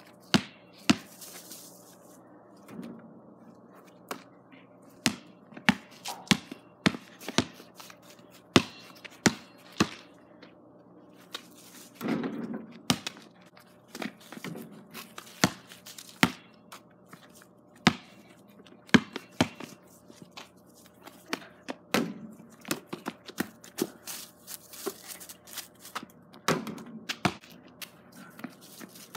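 Basketball bouncing on hard dirt and striking the backboard and rim: a string of sharp, irregular thuds, at times running in even dribbles of about two bounces a second.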